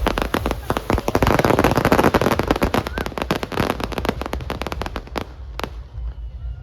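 Fireworks going off in a rapid, dense string of crackling bangs for about four seconds, then thinning out to a few single bangs near the end.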